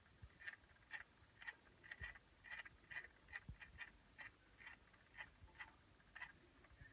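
Small motorised display turntable turning, giving faint, uneven clicking at about two clicks a second.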